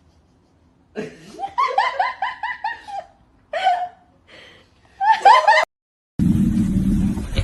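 A person laughing in quick short bursts, a run of rapid 'ha-ha' pulses followed by a few shorter outbursts.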